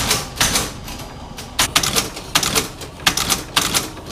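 Old ex-US Army embossing machine stamping characters into a metal tag: a run of sharp mechanical clacks, about two a second, each with a short ringing tail.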